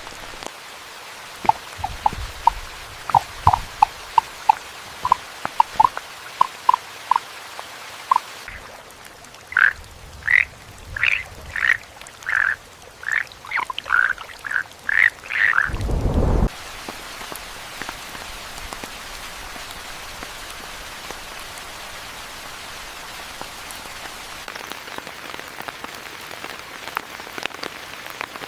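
Frogs croaking over steady rain: first a run of short, evenly repeated croaks, about two a second, then a louder, higher-pitched series of croaks that ends with a brief low rumble past the middle. After that only the rain hiss remains.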